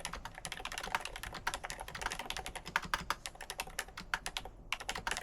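Royal Kludge S98 96% wireless mechanical keyboard being typed on quickly: a fast, uneven stream of keystroke clacks, with a brief pause about four and a half seconds in before typing resumes.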